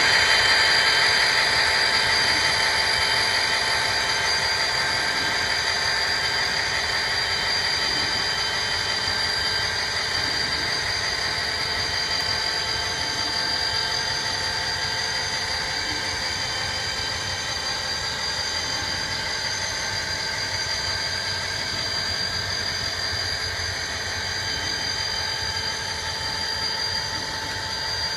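Recorded diesel engine sound from the onboard speaker of an Athearn RTR HO-scale SD40R model locomotive, running steadily and fading slowly as the engine moves away. The model hopper cars roll along the track in the background.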